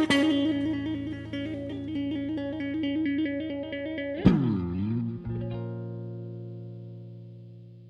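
Guitar outro of a song: a steady picked guitar line, then about four seconds in a sharp hit with a quick swooping dip in pitch, after which a held chord rings and slowly fades out.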